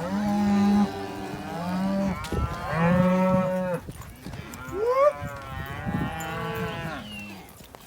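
Several cattle mooing: about five long calls that overlap at different pitches, one of them a higher call rising sharply about five seconds in.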